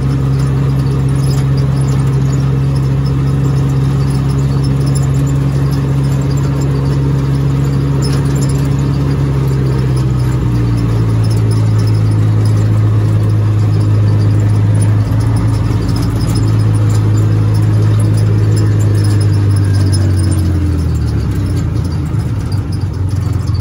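Polaris RZR side-by-side's engine running steadily under way. Its note drops in pitch about ten seconds in and again near the end.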